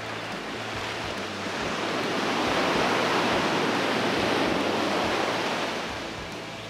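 Ocean surf: a wave breaks and washes up the beach, swelling through the middle and easing off near the end.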